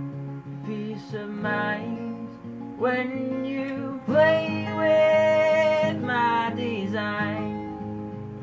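Acoustic guitars strummed together with a man singing over them in long, sliding held notes, the longest near the middle held for about two seconds.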